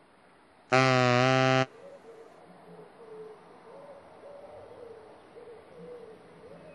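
A toucan's call, given as one loud, steady hooting honk about a second long, starting just under a second in. Faint wavering calls follow in the background.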